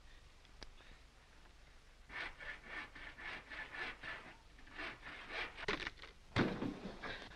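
Pocketknife blade sawing back and forth through a tree branch, rasping strokes about four a second, then a single loud crash a little after six seconds in.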